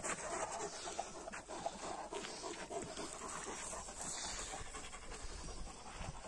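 Georgian shepherd dogs (nagazi) panting steadily, tired and hot after playing.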